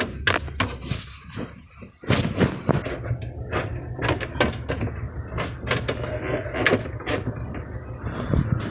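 Irregular knocks, clicks and clatter of parts being handled during refrigerator repair work, over a steady low hum.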